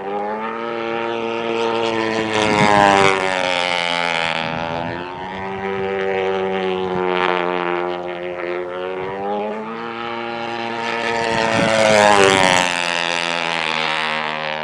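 Model airplane's YS 115 glow engine running at high revs on a fast pylon racer, making two close fly-bys about 3 s in and near 12 s, its pitch rising as it approaches and dropping as it passes each time.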